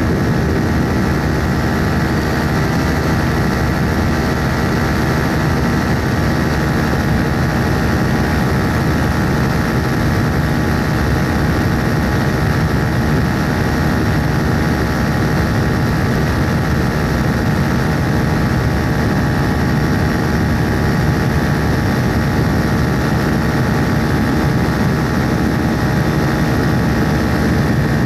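Propeller aircraft engine running steadily in cruising flight, an even drone that holds the same pitch throughout.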